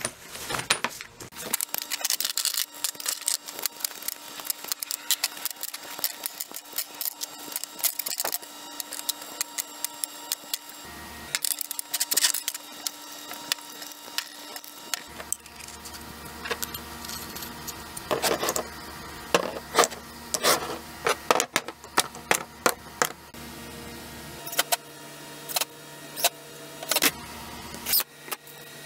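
Scattered clinks and knocks of black iron pipe and floor-flange fittings and tools being handled and set down on a wooden bench, over a faint steady hum.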